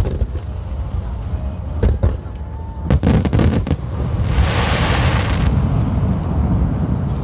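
Aerial fireworks bursting: single booms, then a quick cluster of bangs about three seconds in, followed by about a second of crackling hiss.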